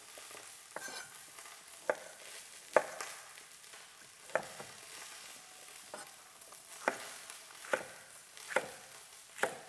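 Chef's knife chopping vegetables into large chunks on a wooden cutting board: about eight single, separate knocks of the blade on the board, roughly one a second and unevenly spaced.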